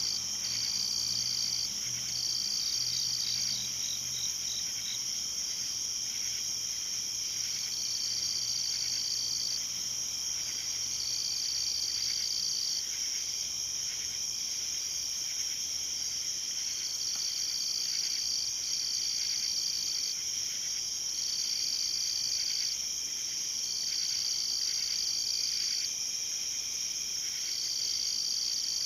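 Night insect chorus of crickets: a steady high-pitched drone, with one cricket trilling in repeated bouts of one to two seconds and a quick run of chirps a few seconds in.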